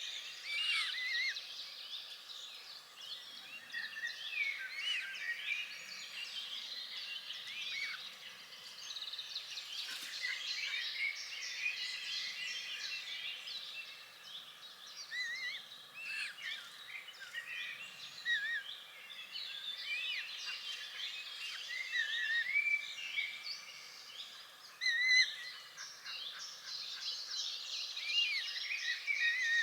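Many songbirds singing and chirping at once, a dense, continuous chorus of short high warbles and twitters, with one louder call about 25 seconds in.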